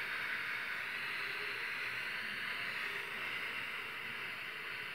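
A steady, even hiss with no other sound over it.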